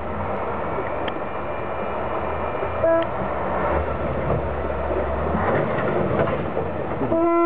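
Competition trial truck's engine running under load as it climbs, with a short horn toot about three seconds in and a long horn blast near the end.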